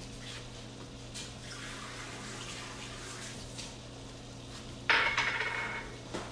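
Sesame chicken sauce simmering in a steel sauté pan over a steady low hum. About five seconds in comes a loud clatter of kitchenware that rings briefly.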